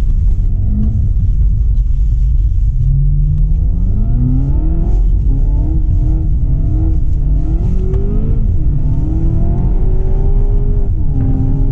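Seat Leon Cupra 300 4Drive's turbocharged 2.0-litre four-cylinder engine, heard from inside the cabin. The revs climb and fall back several times.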